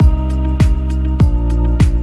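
Background music with a steady beat: a deep electronic kick drum about every 0.6 seconds over sustained bass and chord notes, the beat coming in at the start.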